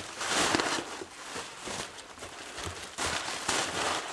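Packing material in a shipping box rustling and crinkling as it is handled and pulled out, in irregular crackly surges.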